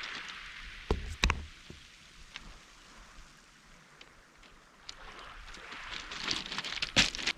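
Surf washing over a pebble beach: a rush of water at the start that dies away, then swells again near the end. A few sharp clacks about a second in and a louder one near the end.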